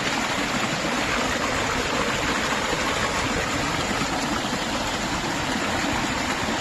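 Mountain stream rushing over rocks: a steady, even sound of flowing water.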